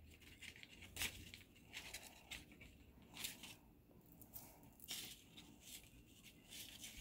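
Faint snips of small wire cutters through the wire stems of artificial flowers, a few short clicks with the sharpest about a second in, over light rustling of the flowers and a paper bag.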